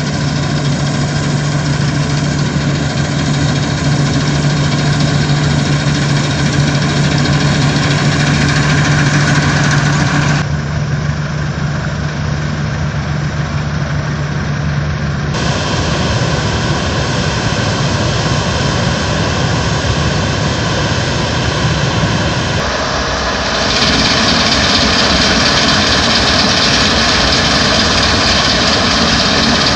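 Fortschritt combine harvesters running at work, their diesel engines and threshing machinery giving a steady loud drone, mixed with an IFA W50 truck's engine running alongside while grain is unloaded. The drone changes abruptly three times and is louder and brighter for the last few seconds, where a combine is cutting standing grain.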